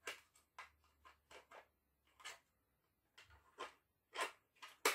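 Faint clicks and taps of hard plastic as a Zuru X-Shot Regenerator toy foam-dart blaster is handled and turned over, with two sharper clicks about four seconds in and just before the end.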